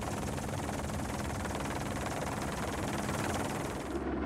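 Helicopter running with a steady rotor and engine noise. About four seconds in it cuts to a duller, lower hum.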